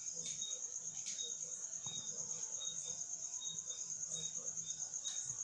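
Crickets chirping: a steady, high, rapidly pulsing trill, with a second, lower insect call in short chirps repeating about every three-quarters of a second.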